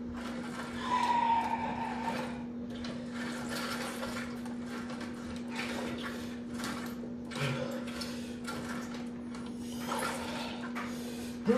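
Homemade cable-and-pulley rig worked through arm-exercise reps: repeated rubbing, swishing strokes of the cable running over the pulley, with a short squeak about a second in. A steady low hum runs underneath.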